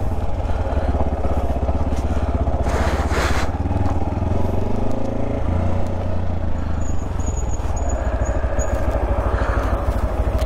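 Motorcycle engine running under way, its exhaust freshly welded after a loose mounting and broken pipe were found. The engine note falls and picks up again about five seconds in, and there is a brief rush of noise about three seconds in.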